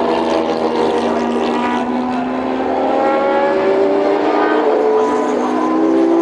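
Mazda 787B's four-rotor rotary race engine running hard at high revs, its pitch rising steadily as the car accelerates.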